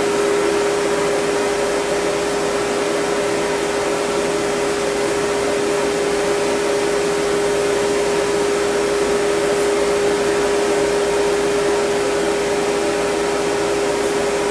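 Dog grooming dryer running steadily, blowing air onto a poodle's coat for fluff drying, a constant rush of air with a steady motor hum.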